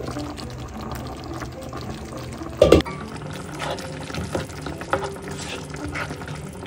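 A spatula stirs thick coconut-milk curry in a nonstick pan after a glass pan lid is lifted off, giving wet liquid sounds and small clicks. A single clunk about two and a half seconds in is the loudest sound. Soft background music plays under it.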